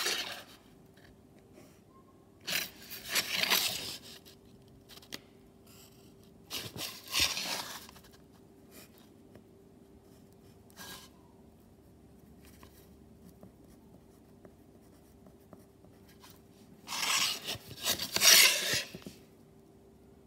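Pencil lead scratching across paper as straight lines are drawn along a ruler: four or five separate strokes, the longest near the end.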